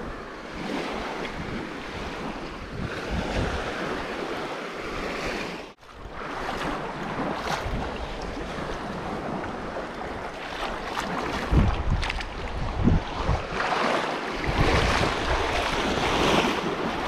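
Wind buffeting the microphone over small waves washing on the shore, with a couple of heavier gusts about twelve seconds in and a sudden brief dropout about six seconds in.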